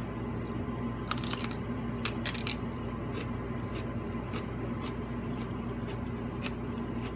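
Crisp crackles and clicks from someone eating fried chicken: short bursts about a second and two seconds in, then faint ticks, over a steady low hum.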